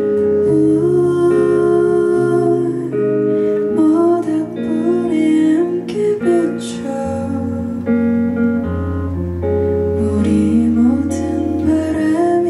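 Instrumental break in a slow acoustic ballad played live, led by acoustic guitar over held low notes.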